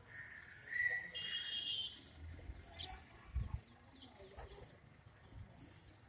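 Faint outdoor ambience with a few short, high whistled bird calls in the first two seconds, and a soft low thump about three and a half seconds in.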